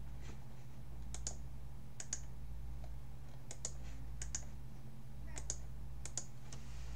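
Sharp clicks of a computer mouse and keyboard, mostly in quick pairs, about one pair a second, over a steady low hum.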